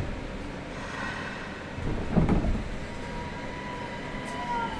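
Inside a Nagoya Municipal Subway 2000-series car with a refurbished IGBT VVVF inverter, around departure from a station. The train makes a steady low running noise, with a clunk about two seconds in and a faint steady whine from the inverter and traction motors.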